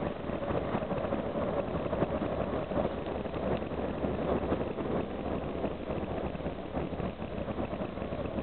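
Karosa B741 articulated city bus under way at steady speed, heard from inside at the front: a continuous mix of its diesel engine running and road and wind noise.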